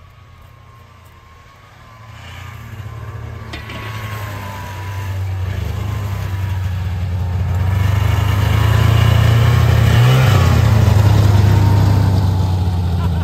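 Snowmobile engine approaching. Its drone grows steadily louder over several seconds until the machine is running close by.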